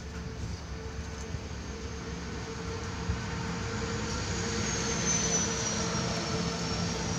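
A steady motor hum with a faint high whine, growing louder through the second half.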